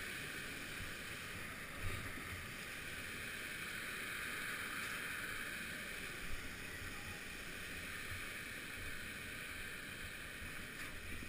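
Steady rush of water pouring over a man-made weir, with a couple of light knocks about two and six seconds in.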